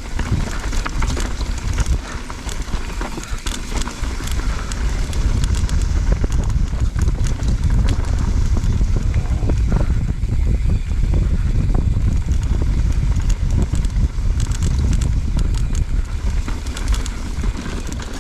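Mountain bike riding over rough trail, heard from a helmet chin-mounted camera: a heavy wind-and-ground rumble with a constant rattle of clicks and ticks from the tyres and bike, growing louder about four seconds in.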